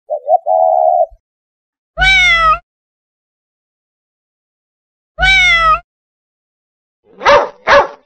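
Animal calls one after another: a pigeon coo of two brief notes and then a held one, then two cat meows about three seconds apart, then two quick dog barks near the end.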